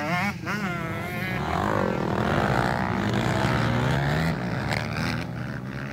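Motocross dirt bike engines revving as the bikes race past on the track. The sound swells in the middle and eases off near the end.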